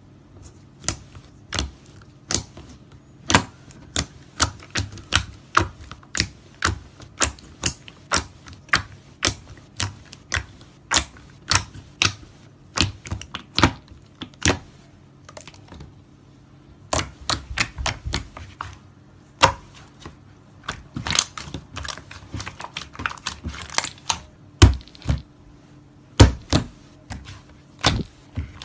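Slime being squeezed and poked by hand, giving sharp clicks and pops about two or three a second, with quicker crackling runs in places.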